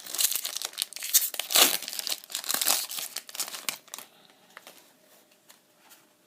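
Foil Pokemon booster pack wrapper being torn open and crinkled: a dense, crackling rustle for about four seconds, then only faint ticks.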